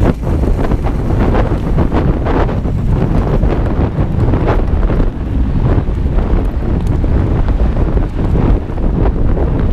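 Wind buffeting the microphone of a handlebar-mounted action camera on a mountain bike riding a dirt trail, over a steady rumble of knobby tyres on dirt. Frequent short knocks and rattles come from the bike as it goes over bumps.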